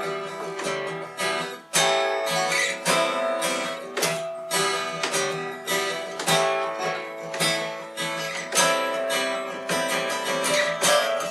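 Acoustic guitar strummed in a steady rhythm, with accented strokes about once a second, playing an instrumental break between verses of a folk song.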